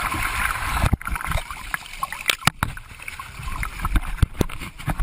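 Seawater splashing and sloshing close to a handheld GoPro camera in the ocean, with repeated knocks and crackles from the camera being jostled.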